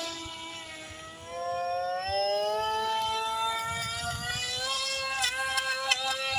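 Radio-controlled model flying boat's motor and propeller whining as it runs across the water. The pitch climbs as the throttle opens about a second in, then holds high, with brief dips near the end.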